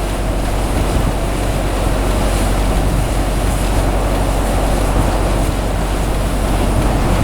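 Blizzard wind blowing hard and steadily, buffeting the microphone with a deep rumble.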